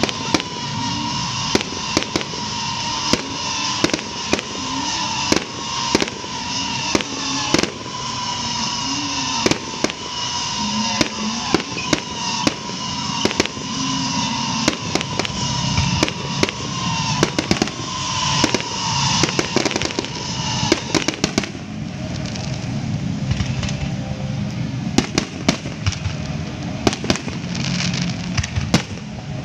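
Aerial fireworks shells bursting in quick, irregular bangs, several a second. A steady high tone sounds under the bangs, drifts slightly lower, and stops about two-thirds of the way through.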